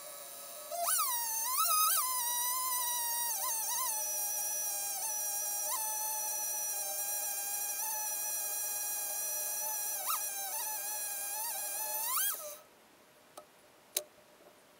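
Chainsaw engine on a chainsaw mill revving up from a low steady run and working through a cut, its pitch sagging and recovering under load, then rising sharply and stopping abruptly near the end. A few light clicks follow.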